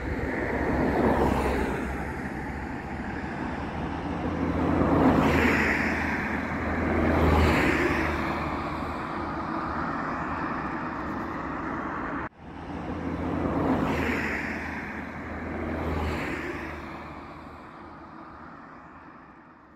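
Road traffic: cars passing one after another, each swelling and fading, over a steady low engine hum. The sound cuts off abruptly about twelve seconds in, picks up again, and fades out near the end.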